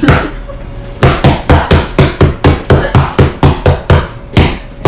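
Peppermint candies being crushed by repeated sharp blows, about four strikes a second, one strike at the start and then a fast run of them from about a second in.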